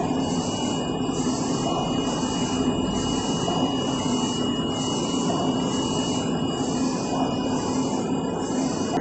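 Audley UV 9060 flatbed UV printer printing, its print-head carriage shuttling back and forth: a hiss that swells and dips about every two-thirds of a second over a steady machine hum with a thin high whine.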